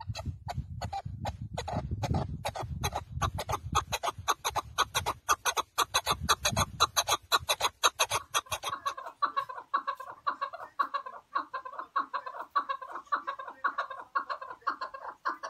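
Partridge calling: a fast, unbroken run of sharp chuck notes, about five a second, that turns into a steadier, more tuneful repeated note about halfway through. A low rumble runs under the first half.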